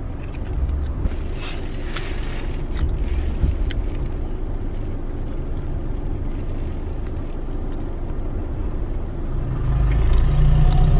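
Steady low rumble of a car in motion, with a few brief scratchy sounds between one and three seconds in; the rumble grows louder near the end.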